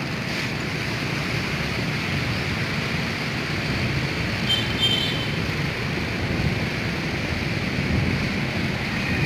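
Wind buffeting the phone's microphone: a steady low rumbling noise, with a brief faint high chirp about five seconds in.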